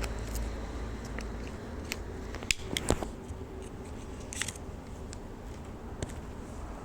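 Packaging being handled and opened: a scatter of small clicks and crackles, the two sharpest about halfway through and a short cluster soon after.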